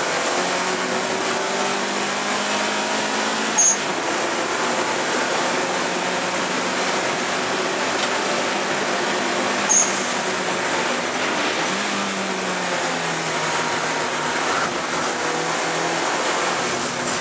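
Cabin sound of an Alfa Romeo 155 Turbo touring car at racing speed: the turbocharged engine running hard under steady wind and road noise, its pitch dipping and climbing again about twelve seconds in. Two short high chirps cut through, one near four seconds and one near ten.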